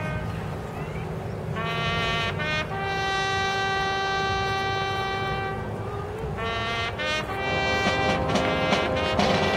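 Marching band brass section playing long held chords, with short breaks between them. About seven seconds in, the full band comes in louder, with percussion hits.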